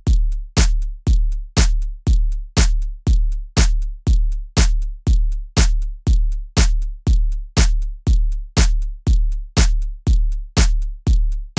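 Programmed electronic drum beat playing alone: a deep kick drum with a sharp click on top about twice a second, a lighter hit falling between each pair of kicks.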